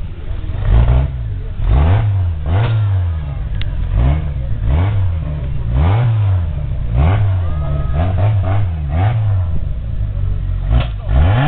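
Engine of an off-road 4x4 trial vehicle revved hard in short repeated bursts, rising and falling about once a second.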